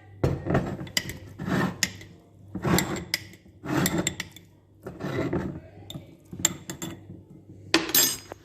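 Kitchenware being handled as garlic-stuffed dried figs are packed and pressed into a container: a series of irregular clinks, knocks and rubs, the loudest near the end.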